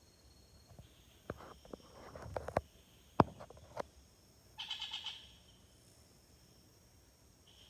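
Several sharp knocks and a brief rustle, the loudest knock about three seconds in, followed by a short, fast rattling bird call about a second later. A faint steady high insect drone runs behind.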